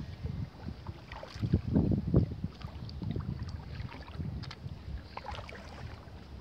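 Wind buffeting the microphone in irregular low gusts, with light splashing from a hooked catfish thrashing at the water's surface.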